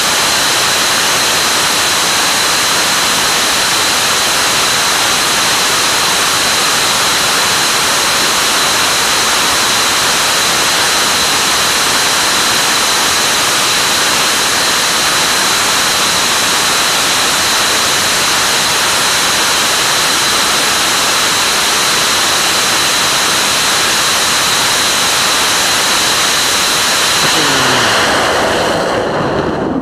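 ABLE pressure-fed liquid-oxygen and Jet A-1 rocket engine firing at full flow: a loud, steady hiss with a thin high whine running through it. Near the end the engine shuts down, and the sound thins out, drops in pitch and loses its hiss.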